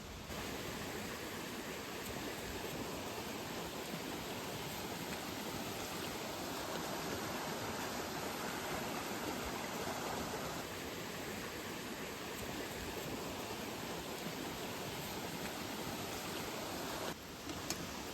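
Steady rushing of water, an even hiss with no distinct events, changing abruptly just after the start and again about 17 seconds in.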